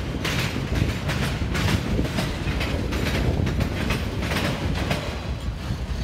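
Freight train of autorack cars rolling past: a steady rumble of the cars with irregular clattering of steel wheels over rail joints.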